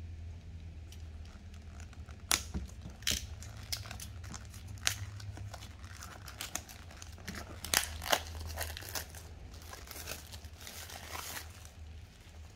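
Clear plastic shrink-wrap being picked at, torn and peeled off an instant noodle cup by hand, crinkling in irregular sharp crackles, loudest about two seconds in and again around eight seconds, over a low steady hum.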